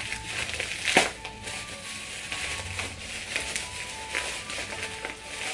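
Clear plastic bag of small tumbled stones crinkling as it is handled and turned over, with a sharper crackle about a second in.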